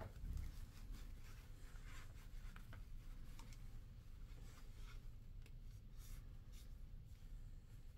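Faint rustling and rubbing of a microfiber towel as a small part is wiped clean by hand, with light scattered ticks.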